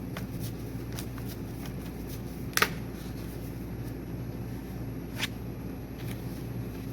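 Tarot cards being shuffled and handled: light ticking with two sharp card snaps, the louder one about two and a half seconds in, over a steady low hum.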